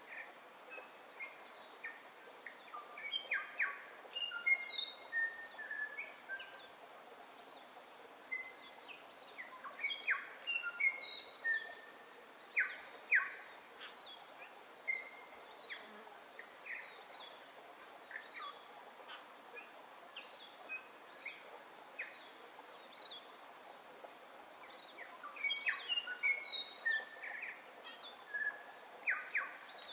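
Birds singing and calling: many short whistles, chirps and sliding notes, busiest in two spells, over a faint steady hiss.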